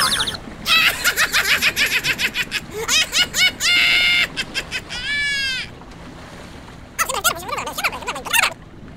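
A cartoon character's high-pitched wordless vocal sounds: bursts of rapid chattering laughter in the first half, a short squeaky glide about five seconds in, and a burst of gibberish exclamations near the end.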